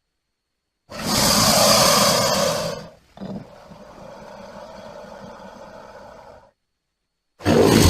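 Crocodile sound effect: a loud call starting about a second in and lasting about two seconds, then a quieter, drawn-out call held for about three seconds. Another loud sound begins near the end.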